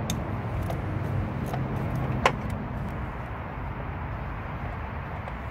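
A socket on an extension being worked on a bolt in a car's engine bay, with one sharp metallic click about two seconds in, over a steady low rumble.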